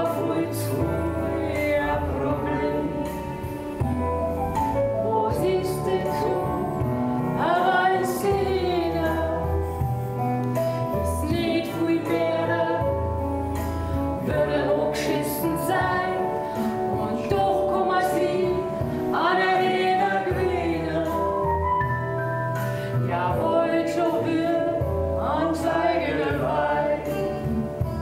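A man and a woman singing a song together over recorded instrumental backing music, with a bass line that moves every couple of seconds under the voices.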